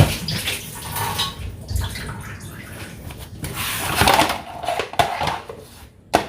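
Kitchen handling sounds as lunch containers and utensils are moved about and set down, with several sharp knocks among the rustling and clatter.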